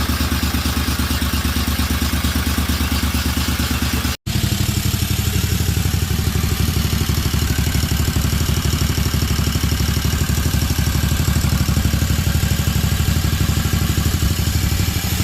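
Rebuilt Kawasaki engine of a Toro ProLine 34" mower running steadily on its test run after the rebuild, with a momentary dropout about four seconds in.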